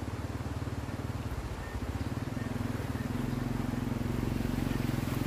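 A vehicle engine running steadily, a low pulsing rumble that grows slowly louder.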